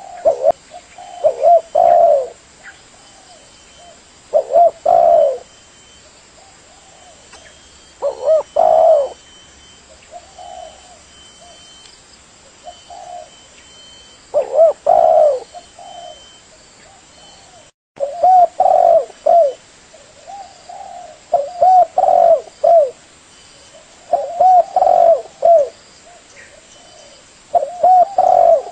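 Spotted dove cooing: short phrases of a few low coo notes, repeated every two to four seconds. The sound cuts out completely for a moment about 18 seconds in.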